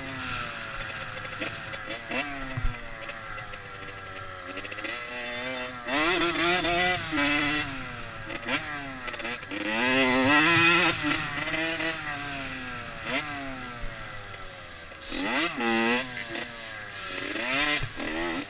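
Dirt bike engine running under hard riding, its pitch climbing and falling over and over as the throttle is opened and rolled off. It surges loudest about six, ten and fifteen seconds in.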